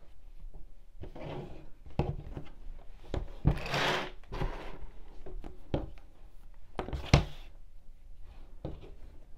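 Handling noises of crochet materials being set up: rustling with a few light knocks and thumps spread through, the loudest knock about seven seconds in.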